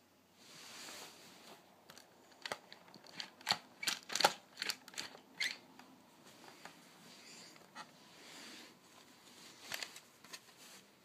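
Handling noise from toy remote-control cars and their remote: a run of sharp plastic clicks and knocks, densest in the middle, with soft rubbing before and after.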